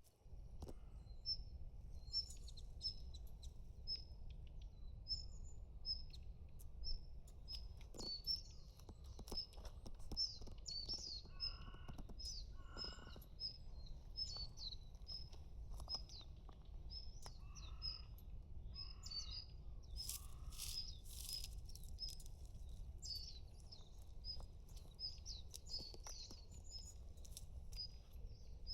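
Small birds chirping with short, high calls repeated over and over, over a steady low background hum. A few lower, harsher calls stand out about twelve seconds in and again around eighteen to twenty-one seconds.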